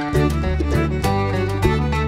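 Background music: an upbeat bluegrass-style tune with fiddle and guitar over a steady rhythm.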